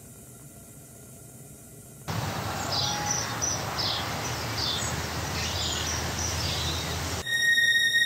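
Faint room tone, then a sudden switch about two seconds in to outdoor ambience: a steady noise bed with small birds chirping in short high calls. Near the end this gives way to eerie music of sustained high tones.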